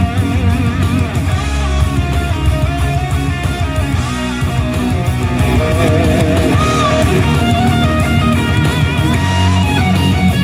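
Rock music with electric guitar and a heavy bass line, played back through a Bose SoundLink Max portable speaker.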